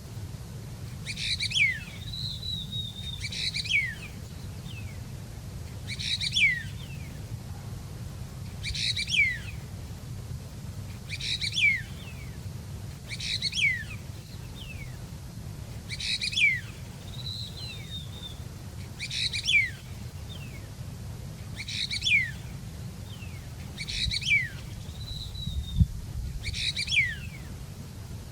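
A bird repeats the same short call about every two and a half seconds, each call a quick burst of high notes that slide downward. A softer second call, a short warbling trill, comes in between a few times.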